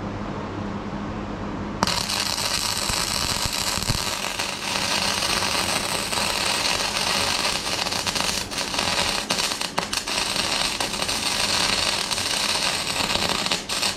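Flux-cored wire-feed (MIG) welder arc crackling as a first pass is laid along a crack in a steel deck. It strikes suddenly about two seconds in, over a steady low hum, breaks briefly a few times in the middle, and stops just before the end.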